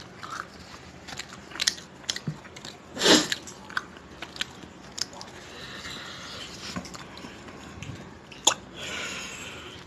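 Close-up eating sounds: a man chewing, with small mouth clicks and the soft rustle of naan being torn by hand. A louder burst of noise about three seconds in and a sharp click near the end stand out.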